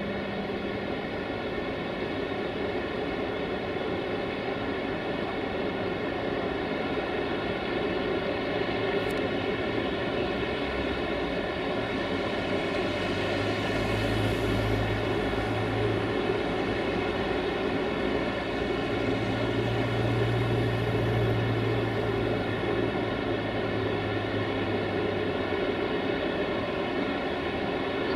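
Electric locomotive easing a passenger train up to the platform and stopping, its equipment giving a steady whine of many even tones over a low rumble. A deeper hum sets in about halfway through and stops a few seconds before the end.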